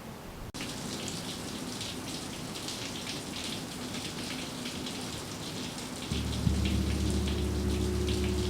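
Rain falling steadily, a fine pattering hiss. About six seconds in a gong begins to sound, a low hum of several steady tones that swells and holds under the rain.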